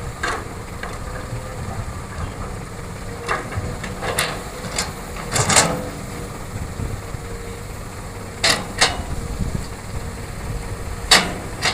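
Excavator's diesel engine running steadily under load, with a series of sharp knocks and clanks spread through, the loudest about halfway and near the end.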